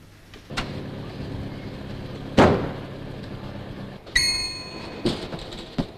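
Shop door handled with a loud thud a little over two seconds in, then a shop doorbell rings with a bright, ringing tone about four seconds in as the glass door is pushed open, followed by a couple of short door knocks. A steady low hum sits underneath until the bell.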